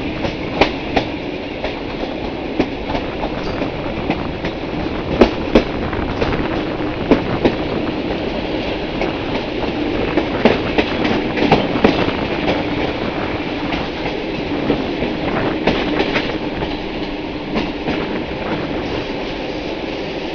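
Passenger train carriage wheels rolling and clacking over rail joints and station pointwork as the train runs into a station, heard through an open carriage window. The steady rolling noise is broken by sharp, irregular clacks, with clusters about five seconds in, around ten to twelve seconds and around fifteen seconds.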